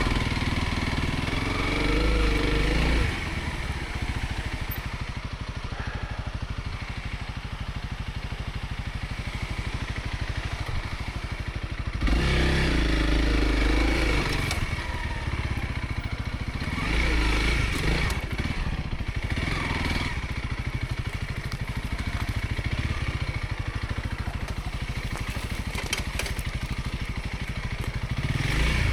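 Dual-sport motorcycle engine on a dirt trail, with the throttle opened in surges that raise the revs at the start, about twelve seconds in and again a few seconds later, and lower, steadier running in between.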